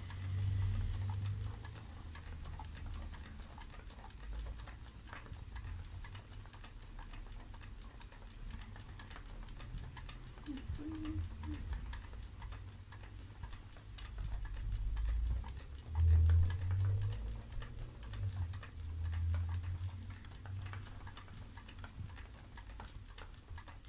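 Ashford Country Spinner 2 spinning wheel being treadled while spinning yarn: a low rumble from the wheel and treadle that swells and eases, with light clicking.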